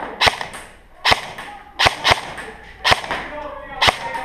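Airsoft guns firing single shots, about seven sharp cracks at irregular intervals with a short echo after each.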